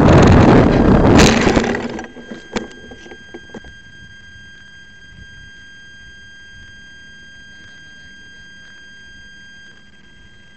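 Air rushing over the microphone of a camera riding on a flying RC airplane, loud for about two seconds and then falling away to a faint, steady high-pitched whine with a few small clicks.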